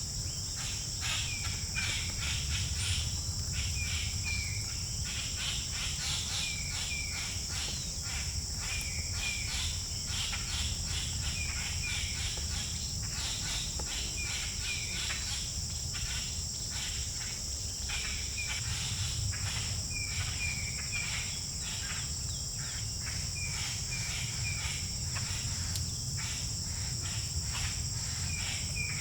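Steady high-pitched insect chorus with irregular quick taps, fitting a downy woodpecker pecking at wood. A bird's short two- or three-note chirps recur every two to three seconds.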